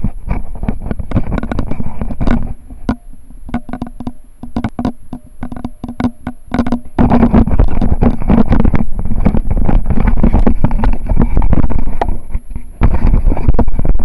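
Handling noise from a mini camcorder in a waterproof case as it is carried and swung about: rubbing and rumbling against the microphone with many sharp clicks and knocks. It eases off between about two and a half and seven seconds in, then comes back loud.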